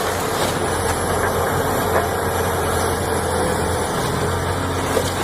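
Steady engine idling sound of an excavator with a deep hum, the recorded engine noise that goes with a toy excavator.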